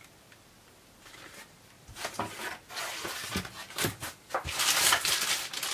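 Toy packaging being handled: rustling with a few light knocks. It starts about two seconds in and grows louder near the end.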